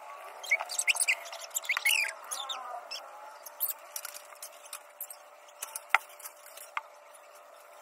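Tap water running into a concrete sink as wet hair is rinsed and rubbed under it. A run of short high squeaks comes in the first three seconds, and a couple of sharp clicks come near the end.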